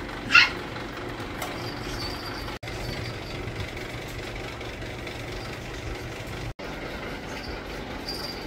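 Steady low rumble and hum of a busy market, with one brief, loud, high-pitched squeal about half a second in. The sound cuts out for an instant twice.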